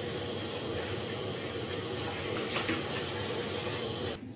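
Milk and vermicelli boiling in a pot: a steady bubbling hiss that cuts off suddenly near the end.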